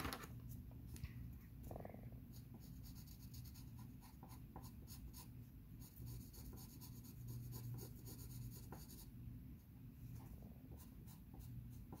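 Pencil scratching on paper, faint, as a drawing is shaded in quick back-and-forth strokes, with a fast run of strokes through the middle.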